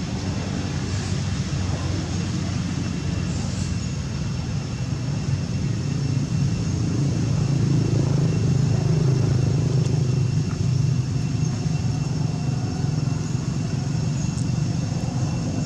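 A steady low engine drone from a passing vehicle or aircraft, swelling to its loudest around the middle and then easing off. A faint, thin high insect tone runs under it.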